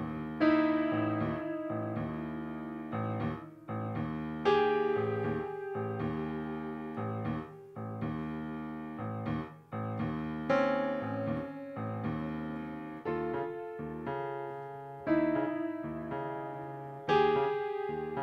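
Grand piano playing a slow instrumental passage: chords struck about once a second, each left to ring and fade before the next.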